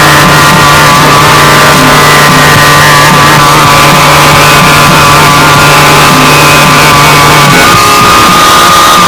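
Harsh noise-core electronic music, a dense, heavily distorted wall of noise played very loud. A held low drone cuts off about seven and a half seconds in, while a wavering high tone above it settles into a steady pitch.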